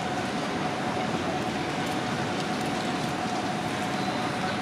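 Railway station platform ambience: a steady hum and rumble with a constant mid-pitched whine, the running equipment of a mainline station with trains standing at the platforms.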